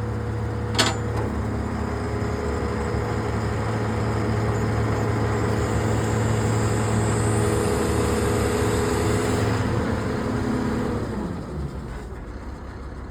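An engine running steadily at a constant speed, with one sharp click about a second in; near the end its pitch falls and it slows down to a quieter, lower running.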